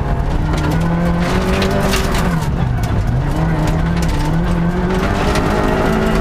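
Vauxhall Corsa 1600 rally car's four-cylinder engine at full effort, heard from inside the cabin: the revs drop twice and climb again. Underneath runs loud gravel noise from the tyres, with stones clicking against the car.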